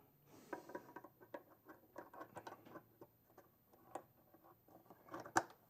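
Faint, irregular small clicks and rustles of hands working initiator wire leads into banana connectors, with a sharper click about four seconds in and another near the end.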